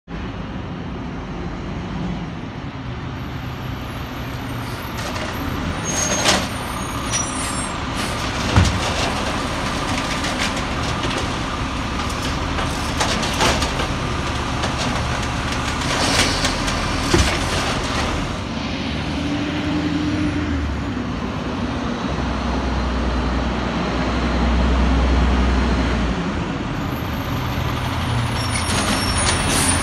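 Volvo automated side-loader garbage truck working the curb: its diesel engine runs steadily while the hydraulic arm lifts carts and tips them into the hopper, with sharp knocks of carts against the truck, the loudest about eight seconds in, and hisses of the air brakes.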